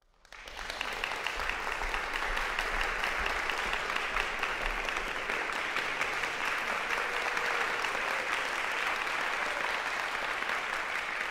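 Audience applauding, rising within the first second and then holding steady.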